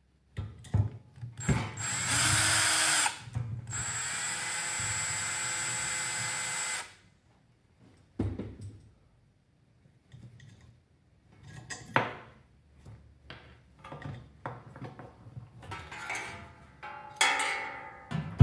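Power drill running in two spells, a short one and then about three seconds, spinning nuts off the threaded studs that hold an electric fan motor's back cover. Scattered metal clicks and rattles of the tools and nuts follow.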